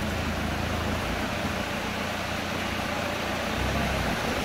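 Toyota Fortuner SUV's diesel engine running steadily at low revs as it crawls through a shallow, rocky river, over the steady rush of the flowing water.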